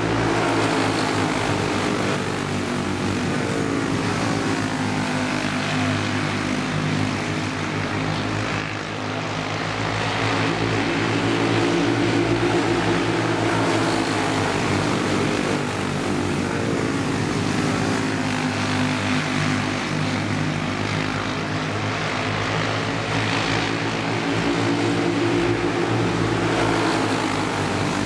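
A pack of quarter-midget race cars with small engines buzzing continuously as they lap a small oval, the engine pitch drifting up and down as the cars pass and run through the turns.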